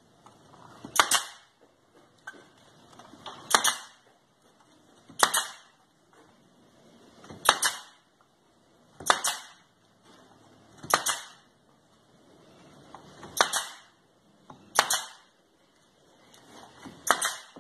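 Pneumatic nailer firing nails one at a time into pine boards. There are about ten sharp shots, roughly one every two seconds, with a second shot close behind the last one near the end.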